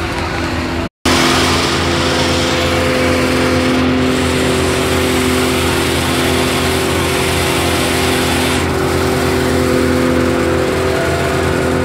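Fire truck's engine running its water pump with a steady drone under a loud, even rush of noise. The sound cuts out for an instant about a second in.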